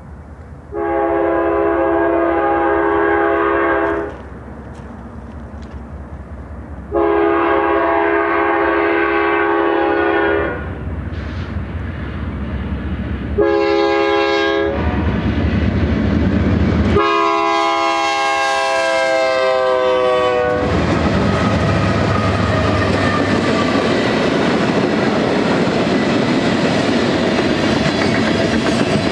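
Freight locomotive air horn of an approaching BNSF GE diesel sounding two long blasts, a short one and a final long one that drops in pitch as the locomotive passes: the standard grade-crossing warning. The train then rolls past with a steady rumble and clickety-clack of wheels over rail joints.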